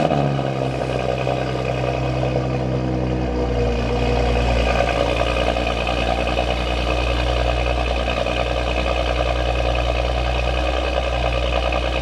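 Audi S4 engine idling high just after a cold start, running steadily, with the revs easing down slightly a few seconds in.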